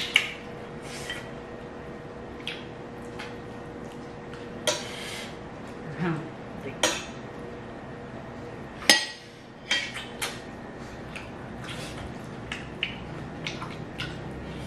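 Close-up eating sounds from two people sucking and chewing on chicken feet: scattered wet mouth clicks and smacks, with a spoon clinking against a plate.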